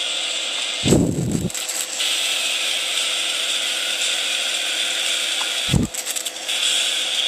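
Audio-modulated flyback-transformer plasma arc (plasma speaker) giving a steady high-pitched hiss. The hiss breaks off twice, about a second in and about six seconds in, each time with a brief low thump.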